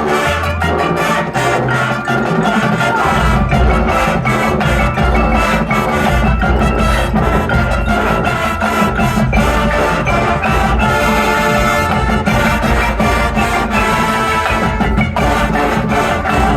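High school marching band playing a show piece, with brass over a busy drum line. A heavy bass part comes in about three seconds in.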